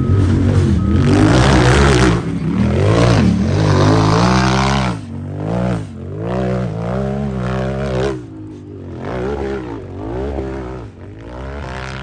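UTV engine revving hard, its pitch climbing and dropping over and over as the throttle is worked. It is loudest for the first five seconds, then comes as a run of quick rev-ups about once a second. A short beep sounds about a second in.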